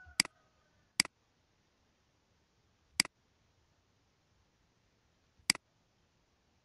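Four sharp computer mouse clicks, unevenly spaced: two close together near the start, then one about two seconds later and another two and a half seconds after that. In the first second, the faint end of a rooster-crow sound effect fades away.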